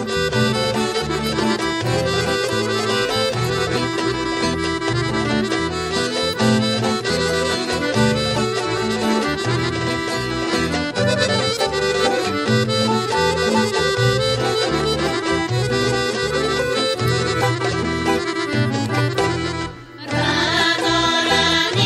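Bulgarian folk dance music with a lively melody over a steady, repeating bass beat. About 20 seconds in it drops out briefly, and a new tune with singing begins.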